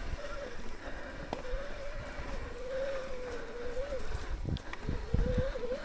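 Shimano mid-drive motor of an electric mountain bike whining steadily under pedal assist, its pitch wavering slightly. Low thuds and rumbles of the bike over rough trail come in about four and a half seconds in.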